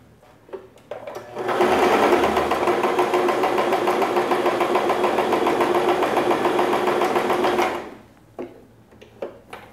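Singer Tradition domestic sewing machine running at a steady speed for about six seconds as it sews the dotted stitch: a rapid, even needle clatter over a steady motor hum. It starts about a second and a half in and stops near the end, with a few small clicks before and after.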